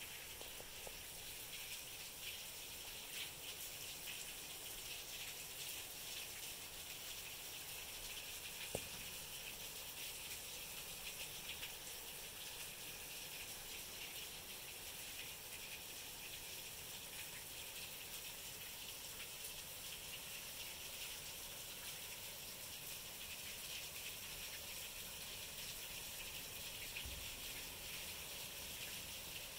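Rain splashing on wet concrete patio steps and puddles, a steady hiss with one sharp tap about nine seconds in.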